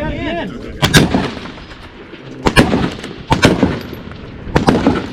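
Rifle gunshots: a sharp crack about a second in, then two quick doubled cracks a little under a second apart, and one more crack near the end, each with a short ringing tail.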